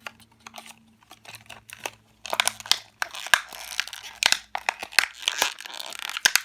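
Clear plastic toy packaging being crinkled and torn open by hand: a few light crackles at first, then dense, continuous crinkling from about two seconds in.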